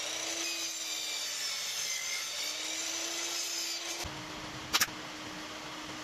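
Sliding compound miter saw running and cutting through a plywood board, a steady motor whine over the rasp of the blade. It stops abruptly about four seconds in. After that comes a quieter steady hum and a sharp double crack.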